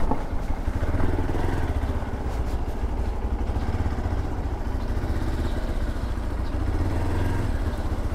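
Hero Xpulse 200 4V's single-cylinder engine running at low revs, with a steady, even pulse, while the motorcycle is ridden slowly.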